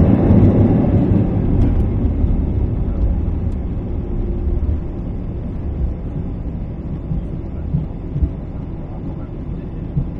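Airbus A319 cabin noise during the landing rollout: a low rumble from the CFM56 engines and the wheels on the runway, loudest at first and fading as the airliner slows. A few light bumps come near the end.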